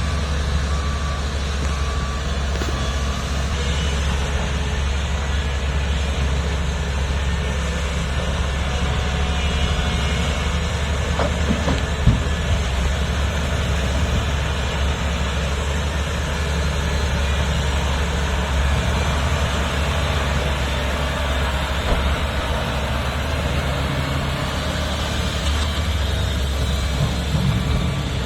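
Heavy earthmoving machinery at work: the diesel engines of a large excavator and dump trucks running with a steady deep drone. A single sharp knock comes about twelve seconds in.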